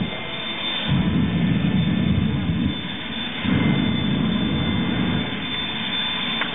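Jet engine of a jet-powered show fire truck firing flame, its sound coming in surges of about two seconds with short dips between.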